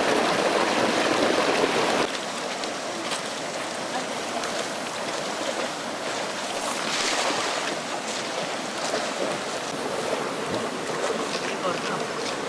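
Steady rush of water in a shallow, rocky stream, with a few faint splashes from people wading. The sound steps down a little about two seconds in.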